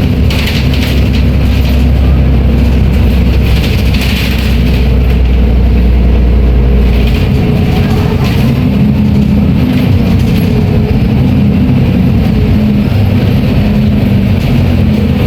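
Volvo B340M bus's six-cylinder diesel engine running, a steady, loud engine note whose deep low hum drops away and shifts about halfway through as the engine speed changes.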